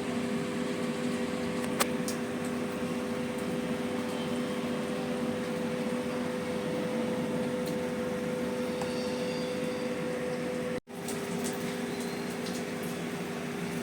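Steady electric motor hum with a constant low drone and an even hiss beneath it, and one short click about two seconds in.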